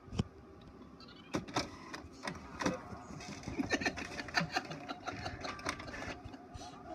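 HP Officejet 4500 inkjet printer printing: a mechanical whirring of the print carriage and paper feed, broken by sharp clicks. The run of ticks grows busier about halfway through.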